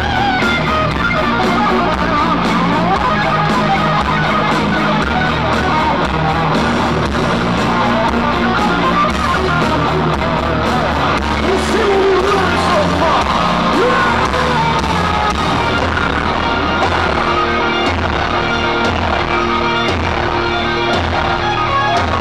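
Heavy metal band playing live, loud and continuous: distorted electric guitars, bass and drums, recorded from within the concert crowd.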